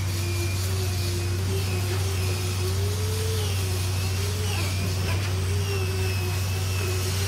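A concrete boom pump truck's engine running steadily as a deep drone, with a whine above it that wavers in pitch.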